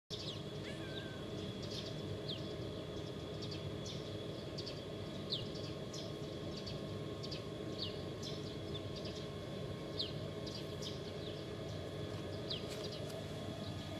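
Outdoor ambience: small birds chirping in short, falling chirps every second or so over a steady low rumble.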